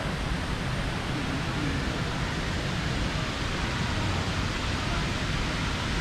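Steady rushing water of a waterfall stream: an even hiss with no breaks.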